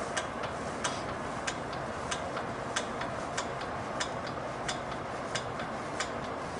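Hydraulic pump of a Hoyer HML400 patient lift worked by its handle, lifting a person in the sling: a regular run of sharp clicks, a louder one about every two-thirds of a second with a softer one between, over a faint steady hiss.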